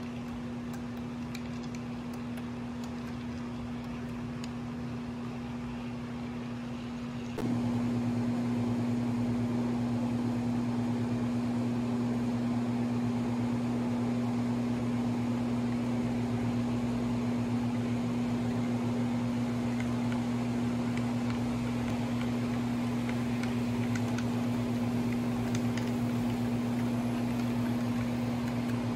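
A steady low hum with an even noise over it, like a fan or a small motor running. It jumps louder suddenly about seven seconds in and then holds steady.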